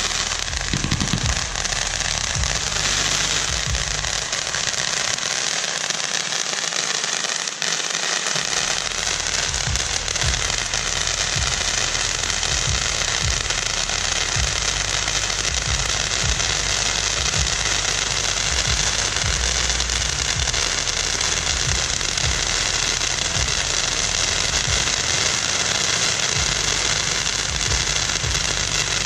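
Firework ground fountains (gerbs) burning and spraying sparks, giving a steady hiss.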